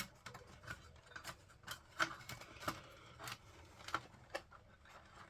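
Irregular light clicks and taps of power-supply cables being pushed and tucked into a small PC case, the sharpest click about two seconds in.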